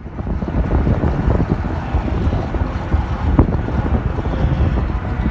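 Wind buffeting the microphone: a steady low rumble with uneven gusts.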